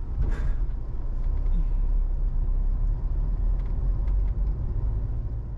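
Car driving along a road: steady low rumble of engine and tyres. A brief rushing noise comes about a third of a second in.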